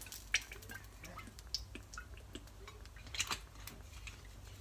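Light clinks and taps of kitchen utensils against a pan, with two sharper clinks about half a second in and a little after three seconds, over faint scattered ticking.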